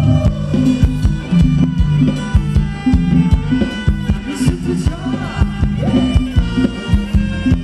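Live band playing upbeat Thai ramwong dance music, with a steady drum beat under several melody instruments.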